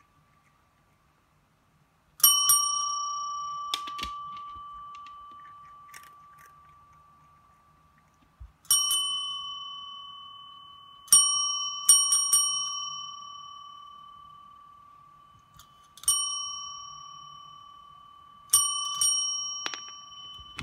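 Chrome desk service bell struck by a cat's paw, about eight dings with some in quick pairs, each ringing out clear and fading slowly.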